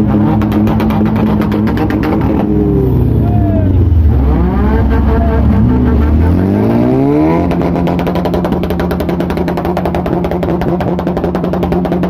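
Vehicle engine running with a steady hum and fast even pulse; about two seconds in its pitch sinks, then climbs back up and settles again near the two-thirds mark.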